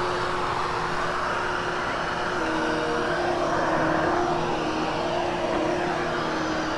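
Hoover HushTone upright vacuum running over carpet, a steady motor hum over a rushing of air; the hum drops slightly in pitch a little over two seconds in, and the rush swells and eases as the vacuum is worked back and forth.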